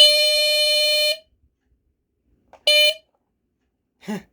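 Square D Earli-Gard EGD-4B smoke detector's Kobishi CLB-27 mechanical squealer horn sounding during a test-button test: one steady, shrill squeal of just over a second, then a second short squeal near the three-second mark.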